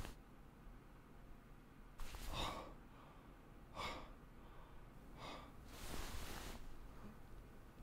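A man breathing heavily in short, gasping breaths, four of them about a second and a half apart, the last one longer.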